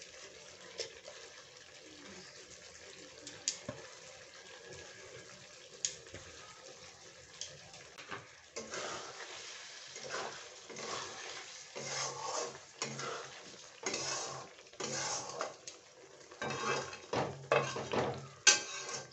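Spatula scraping and stirring paneer curry in a metal karahi: repeated scraping strokes, roughly one or two a second, starting about halfway through. Before that only a few faint clicks.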